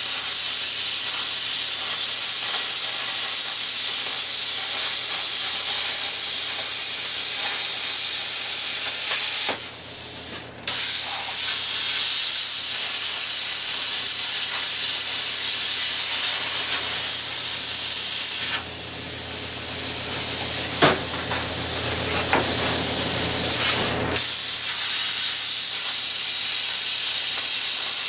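Plasma cutter cutting steel plate: a loud, steady hiss of the arc and air jet. It stops briefly about ten seconds in, then restarts, and dips again for a moment later on.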